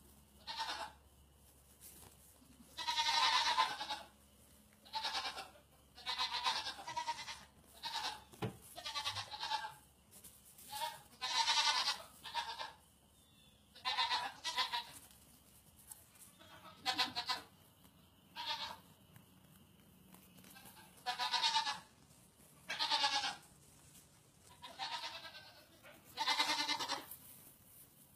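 Baby goats bleating over and over: about twenty short, high calls at uneven intervals, some with a wavering tremble.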